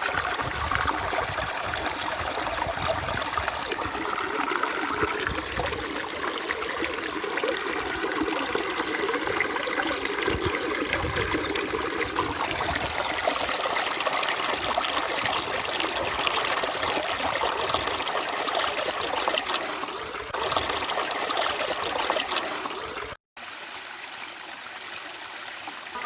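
A stream flowing steadily, with water trickling and burbling. About 23 seconds in it cuts out for an instant, then carries on more quietly.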